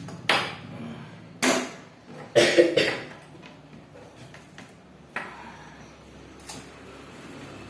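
Scissors cutting through the casing of a burst aquarium heater in a series of sharp crunches, loudest and closest together in the first three seconds, then two weaker snips.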